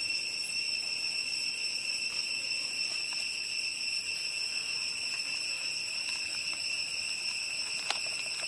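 Insects trilling in one continuous high-pitched tone, with a single sharp click about eight seconds in.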